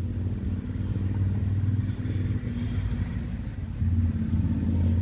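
An engine running steadily with a low hum, a little louder near the end.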